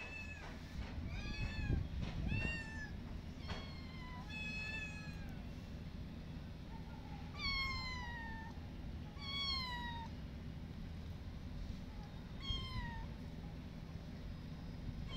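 Kittens meowing over and over, about nine high-pitched meows that each slide down in pitch, several in quick succession in the first five seconds and then more spaced out, over a steady low background rumble.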